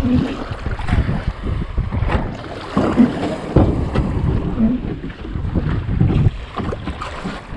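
Gusty wind buffeting the microphone aboard a small fishing boat on open water, with the sea moving around the hull.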